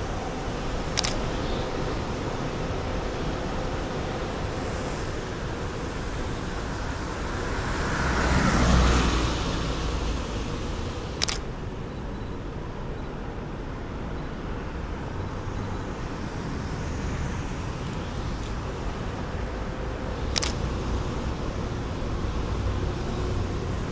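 Steady outdoor traffic noise, with a vehicle passing that swells and fades about eight to ten seconds in. Three sharp clicks come at roughly ten-second intervals.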